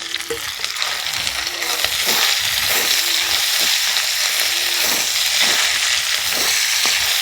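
Spice paste sizzling in hot mustard oil in a kadai, stirred with a spatula in regular strokes about once a second. The sizzle grows a little louder about two seconds in.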